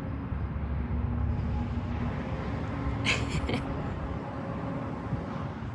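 Young loggerhead shrike giving a short, raspy begging call about three seconds in, over a steady low rumble.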